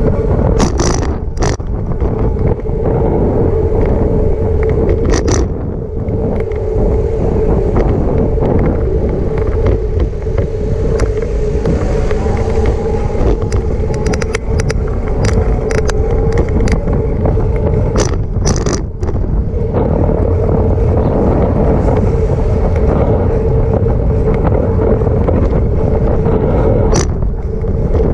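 Riding noise picked up by a camera on a moving bicycle: steady wind and road rumble with a constant hum, broken by a few sharp rattles, two close together about two-thirds of the way through.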